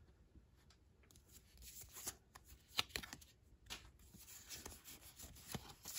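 A stack of Pokémon trading cards from a just-opened booster pack being handled and slid against one another: faint rustling with a few short, sharp card snaps, the loudest about three seconds in.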